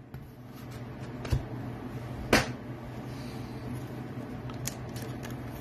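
Trading cards being handled and set down on a table: a few soft taps and clicks, the sharpest about two seconds in, over a steady low hum.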